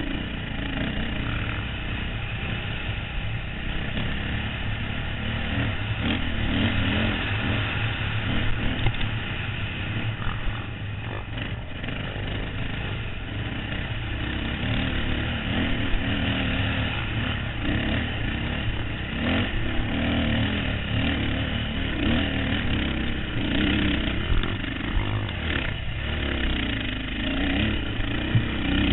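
Dirt bike engine running under constantly changing throttle, the revs rising and falling every second or two as it climbs the trail, with occasional sharp knocks from the bike over rough ground.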